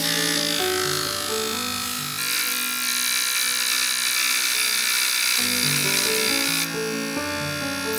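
Mr. Hobby G-Tool cordless polisher switched on, its small motor whirring with a high hiss as the spinning pad polishes a tiny part held against it. The whir grows louder about two seconds in.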